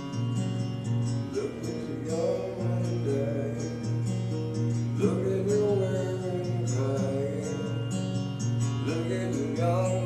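Acoustic guitar strummed steadily, with a man singing through a vocal effects pedal; his sung phrases come in about a second in, again halfway through and near the end.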